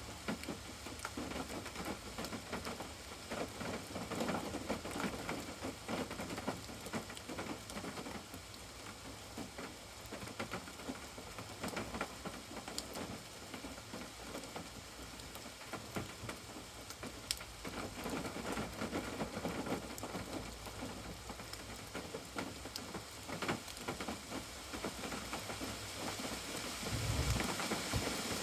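Steady rain falling, with many separate drops ticking sharply through it. A brief low rumble comes near the end.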